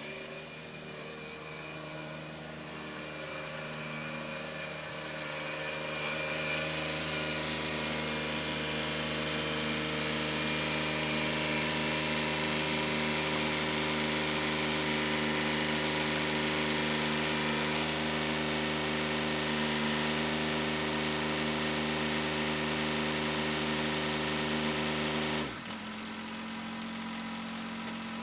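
Kubota L3901 tractor's three-cylinder diesel engine running at a steady speed, growing louder as the tractor drives up close. Near the end the engine speed drops suddenly to a lower idle.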